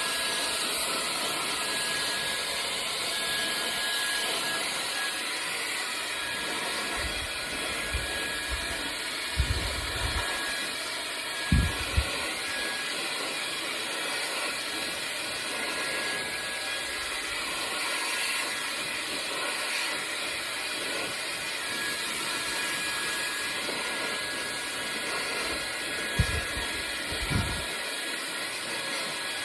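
Gamma+ XCell hair dryer running steadily while blow-drying short hair: a steady rush of air with a thin high whine. A few low thumps come about a third of the way in and again near the end.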